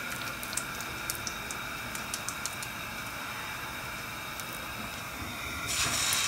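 Hot frying oil in a pan giving a steady faint hiss with scattered light crackles, then near the end a sudden louder sizzle as a raw minced-meat cutlet is laid into the hot oil and starts to fry.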